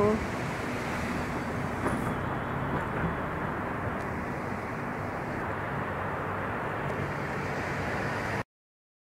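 Steady outdoor street noise of road traffic, with no distinct events, cutting off abruptly to silence near the end.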